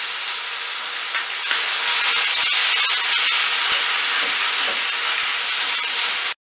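Ground onion and ginger paste sizzling in hot mustard oil in a kadai while it is stirred with a steel ladle. The sizzle grows louder about two seconds in and cuts off suddenly near the end.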